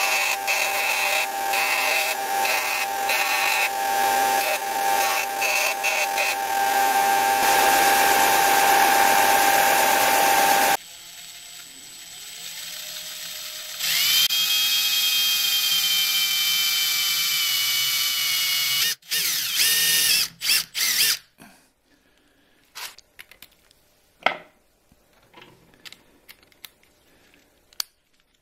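Belt sander grinding a deer-antler whistle's mouthpiece against the running abrasive belt for about the first ten seconds. After a pause, a handheld rotary tool spins up with a rising whine and runs at a steady high pitch as its bit carves the antler. It cuts out after a few seconds with a few short bursts, followed by faint scattered clicks.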